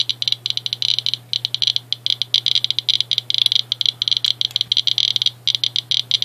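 Radiation Alert Inspector USB pancake-tube Geiger counter clicking rapidly and irregularly, around a thousand counts per minute, as it picks up radiation from uranium-doped Vaseline glass. The clicks come in a dense random patter with brief lulls.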